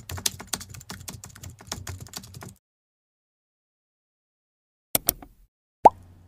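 Computer keyboard typing sound effect: rapid keystrokes for about two and a half seconds, then silence. About five seconds in come two quick mouse clicks, followed near the end by a short pop that drops in pitch.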